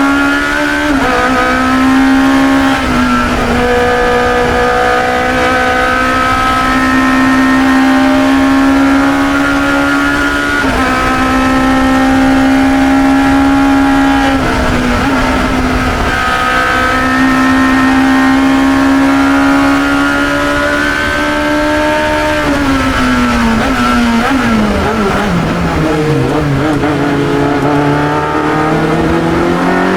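1972 Chevron B21 sports racer's engine heard onboard, running hard at high revs with brief dips in pitch a few times as the driver shifts or lifts. About two-thirds of the way through the revs fall away in steps as the car brakes and downshifts for a corner, then climb again near the end.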